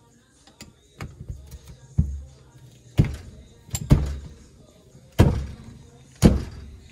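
A dirt-bike brake caliper and a hand tool knocking against a wooden workbench while the caliper is worked loose: about seven sharp knocks, roughly a second apart, each with a short metallic ring, the loudest in the second half.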